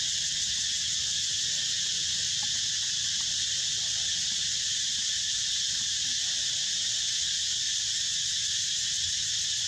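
Steady high-pitched drone of an insect chorus, unbroken and even throughout, with a low rumble underneath.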